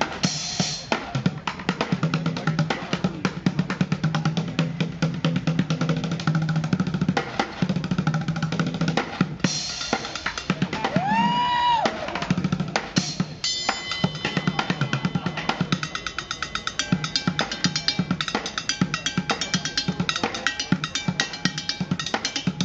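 Fast drumming on upturned plastic buckets: low booming bucket strokes mixed with sharper hits and rapid rolls. Metal ringing from a cymbal and a pot on top of a bucket comes through more clearly a little past halfway.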